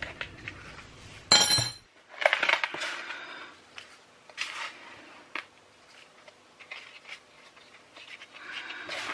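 A metal spoon clinks and scrapes against a small plastic bath bomb mould about a second and a half in, the loudest sound. Then hands press the mould into a tray of powdery bath bomb mix, with soft crunching and rustling and a few light clicks.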